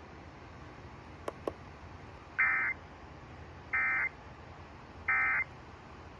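Emergency Alert System SAME end-of-message code: three short identical bursts of buzzy digital data tones, each about a third of a second long and about a second and a half apart, closing the alert. Two faint clicks come about a second before the bursts.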